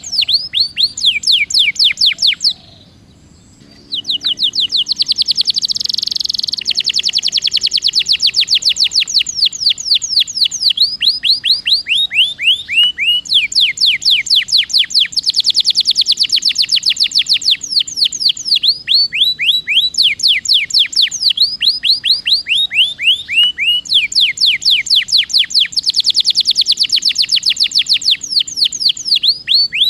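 Domestic canary singing a long rolled song: runs of fast trills made of rapidly repeated falling high notes, with a brief break about three seconds in. It is the kind of 'ngeroll' song played as a lure to set reluctant canaries singing.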